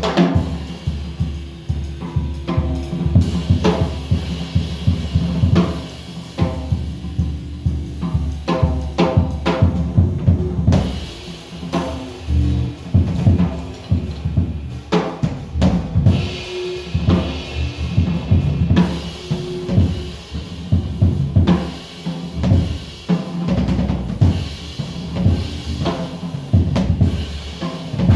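Music driven by a busy drum-kit beat, with bass drum and snare hits in quick succession over pitched instruments.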